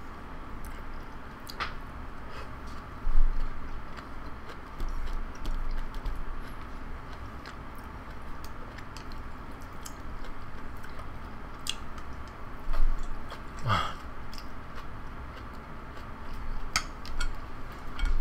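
A person chewing mouthfuls of jajangmyeon noodles, with light clicks of chopsticks against the bowl and a couple of louder knocks.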